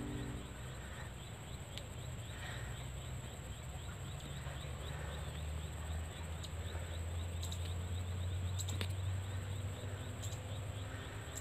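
Open-air ambience over rice fields: a steady low wind rumble on the microphone, with faint insect chirping and a few soft clicks.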